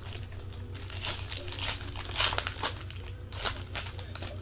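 Foil trading card pack wrapper being torn open and crinkled by hand, with the cards rustling as they are pulled out: a run of irregular crackles, loudest a little past halfway.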